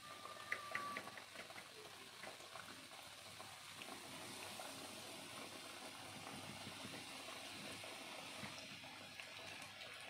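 Flour-coated chicken frying in hot oil: a steady sizzle with scattered crackles, a few sharper ones about half a second in.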